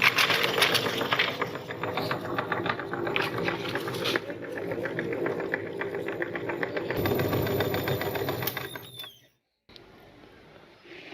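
Meat grinder running and crunching through crunchy cookies, a steady mechanical drone with rapid crackling, cutting off about nine seconds in.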